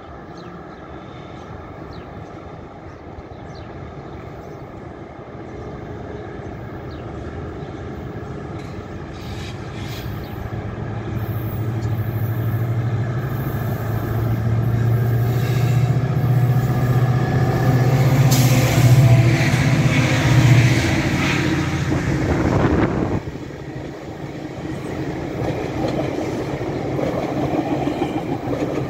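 Doubleheaded MP40PH diesel locomotives approaching and passing beneath, their engines working hard under load with a deep steady drone that grows steadily louder, then drops off sharply about 23 seconds in as the locomotives pass under. After that the passenger cars roll by with rail and wheel noise.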